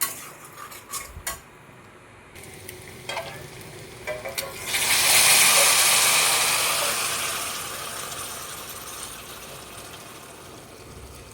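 A few clinks of a utensil against the pan, then about four and a half seconds in a loud sizzle as hot water hits the pan of dry-fried chicken and masala, fading gradually over several seconds.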